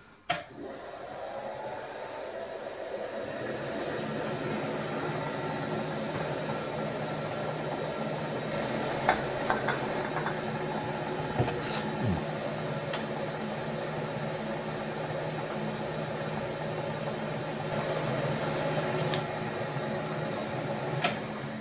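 Vertical milling machine switched on and its spindle running steadily with a steady hum while a center drill spots stay holes in the steel firebox wrapper plate, with a few sharp clicks around the middle; it is switched off near the end.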